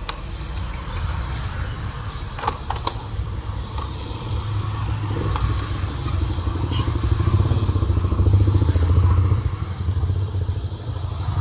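A motorcycle engine running, growing louder to a peak about eight seconds in and then easing off, with a few sharp clicks a couple of seconds in.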